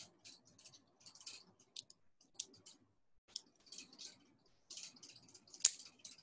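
Wooden lollipop sticks clicking and rubbing together in the hands as a rubber band is wrapped around their ends, with scattered light taps and scratches and one sharper click near the end.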